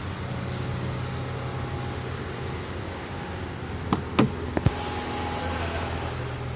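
Renault Clio 1.6 16V four-cylinder engine idling steadily after a rev, with a few short sharp clicks about four seconds in.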